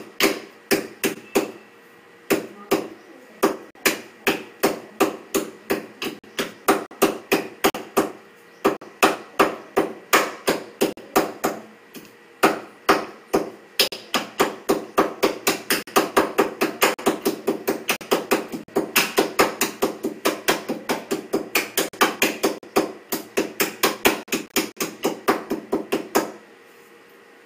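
Pestle pounding cardamom pods in a small steel mortar cup: a long run of ringing metallic strikes, about two or three a second at first with short breaks, then faster, about four a second, from about halfway, stopping shortly before the end.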